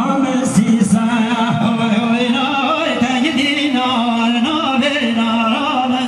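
Kurdish wedding dance music for the govend: a male voice singing over amplified accompaniment, with a steady held low tone under a wavering, ornamented melody.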